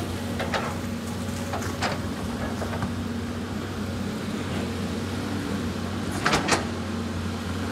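CAT 320D hydraulic excavator's diesel engine running steadily under load while it digs. Its bucket knocks and scrapes against rock and stones a few times, with the loudest clatter about six seconds in.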